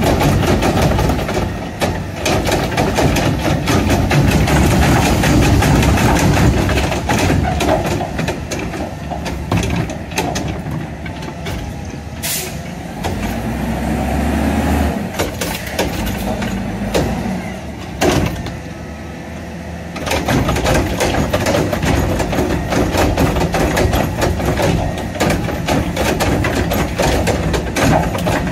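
Mack LR garbage truck with a Curotto Can working the curb: the engine is revved up to drive the hydraulics while the can's arm lifts and tips green-waste carts. It drops back to a quieter idle in the middle, with two sharp bangs, then revs up again for the next cart near the end.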